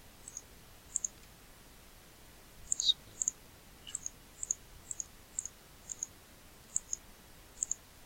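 Computer mouse button clicked over and over: about a dozen faint double ticks, press and release, every half second to a second.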